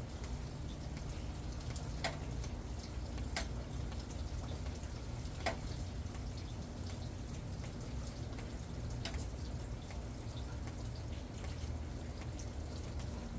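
Rainwater dripping in scattered, irregular drops that land sharply, a few seconds apart, over a steady low rumble.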